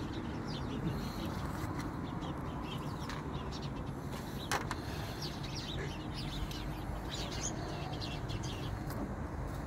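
Small birds chirping over and over, in short high notes, above a steady low background rumble. One sharp click comes about four and a half seconds in.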